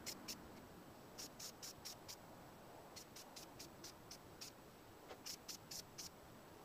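Faint, high-pitched animal chirping in short runs of three or four, about three to four chirps a second, repeating over a quiet background.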